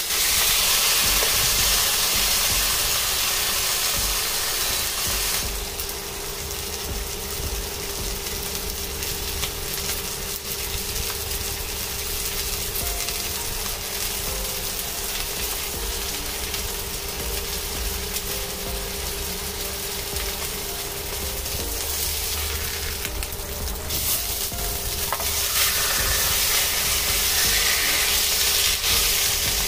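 A sous-vide-cooked T-bone steak searing in melted butter in a nonstick wok. The sizzle is loud for about the first five seconds, eases through the middle, and grows again near the end after the steak has been turned onto its other side with a spatula.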